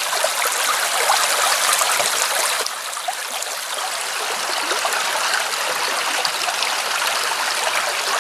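Shallow creek running over stones and around fallen birch logs: a steady rush of water, a little softer after about three seconds.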